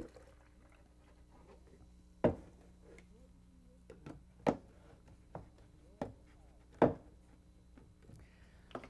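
About five sharp knocks and clunks of a milk carton and a shake container being handled and set down on a kitchen countertop, the loudest about two seconds in and near the end.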